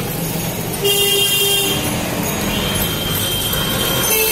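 Busy road traffic with vehicle horns honking: a held horn note about a second in, and another louder one starting near the end.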